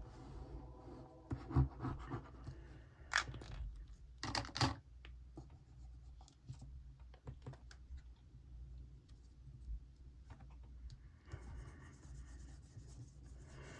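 Scratchy rubbing and paper handling as glue is put on a small printed photo and the photo is pressed down onto a paper planner page, with a few sharper rustles and taps about 1.5, 3 and 4.5 seconds in.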